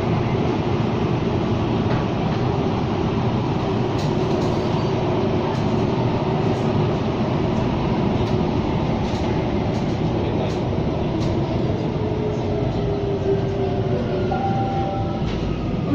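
Singapore MRT train running through a tunnel, heard from inside the carriage: a steady rumble of wheels on rails with occasional light clicks. A faint falling whine comes in near the end.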